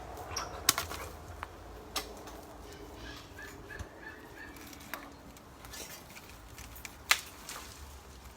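Wind rumbling on the microphone, with a few sharp knocks and cracks, the loudest about seven seconds in. About three seconds in, a bird gives a short run of about six quick notes.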